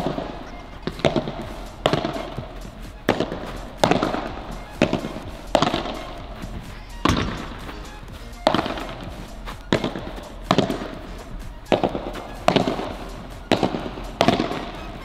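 Padel rackets hitting the ball back and forth in a warm-up rally: sharp pops about once a second, each followed by a short echo around the big stadium.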